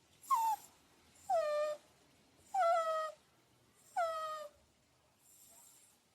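Dog whining: four high whines, each sliding down in pitch, spaced a little over a second apart.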